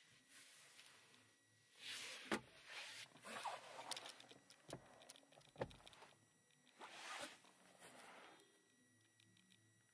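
Quiet handling noise inside a car cabin: soft rustling swishes against the upholstery, with a few sharp plastic clicks and one low thump from the interior trim as it is moved and touched. The rustling dies away near the end.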